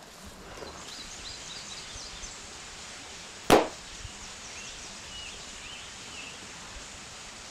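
A single .17 HMR rifle shot, sharp and brief, about three and a half seconds in.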